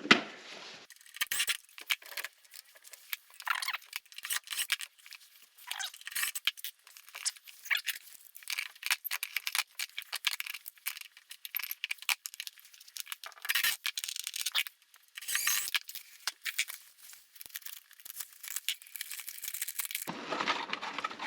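Irregular crinkling and tearing of packaging mixed with small clicks of hardware, as a new storm-door closer is unpacked and handled.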